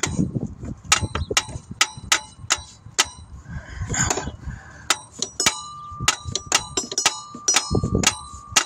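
Repeated sharp metal taps, two to three a second, each with a bright ring, as a replacement alternator is tapped to seat it in its mount. The tapping starts about a second in, and a steady ringing tone hangs on through the second half.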